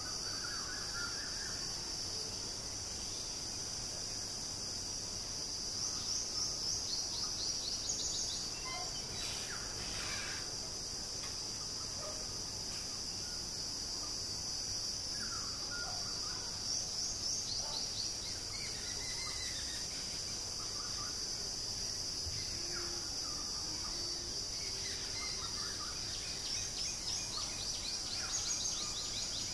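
Outdoor garden ambience: a steady high-pitched insect drone that swells about every ten seconds into fast pulsed trills, with scattered short bird chirps over it.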